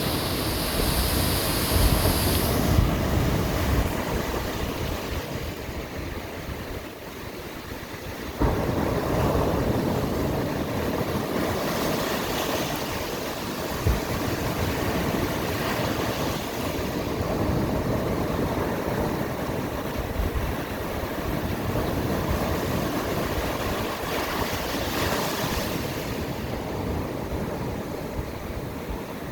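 Black Sea waves breaking and washing on the shore in rolling surges, with wind buffeting the microphone. The sound steps up suddenly about eight seconds in.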